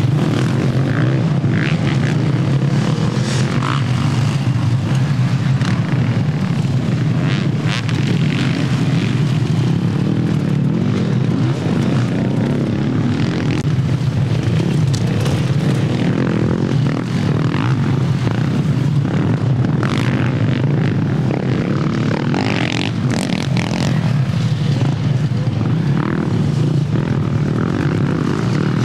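Engines of off-road racing quad bikes and enduro motorcycles running together in a continuous steady drone.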